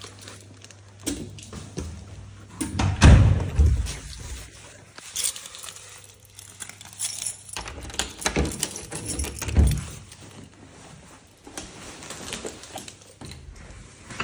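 Keys jangling and the clicks and clunks of door knobs and latches being worked, with a few heavy thumps, the loudest about three seconds in.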